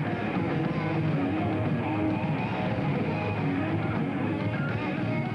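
A heavy metal band playing live, electric guitar to the fore, at a steady level without a break.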